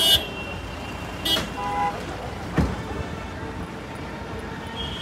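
Roadside traffic: vehicles running past with a steady road noise. A short horn beep comes at the start and another about a second in, with a single thump a little after halfway.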